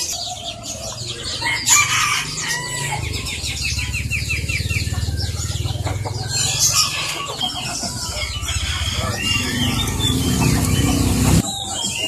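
Many caged birds chirping and calling over one another, with a rooster crowing and chickens clucking among them. Underneath runs a low, steady rumble that cuts off abruptly near the end.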